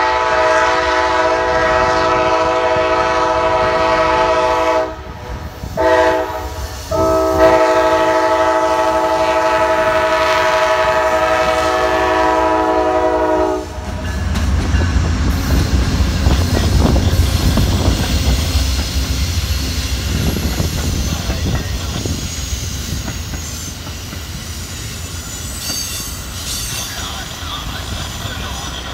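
Amtrak GE P42DC Genesis locomotive's multi-chime air horn sounding the grade-crossing signal: a long blast, a short one, then a final long blast held until about 14 seconds in. The locomotive then passes close by with a heavy low rumble, followed by passenger cars rolling past with steady wheel clatter.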